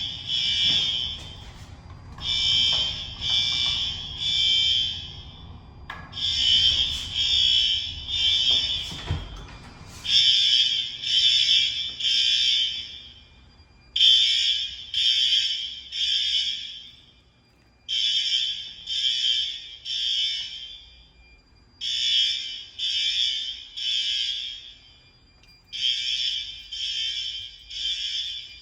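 Fire alarm horns on a Fire-Lite MS-5UD system sounding the temporal-3 evacuation pattern: three short high blasts, then a pause, repeating about every four seconds. A couple of knocks sound in the first third.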